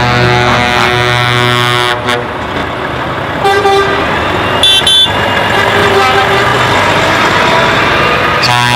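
Truck air horns sounding as the trucks pass: a long blast for about the first two seconds, short toots about three and a half and five seconds in, and another long blast starting near the end, over the trucks' engines.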